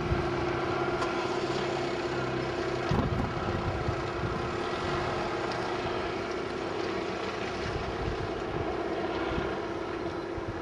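Steady mechanical drone with a constant hum, and low rumbles of wind or handling on the microphone at the start and about three seconds in.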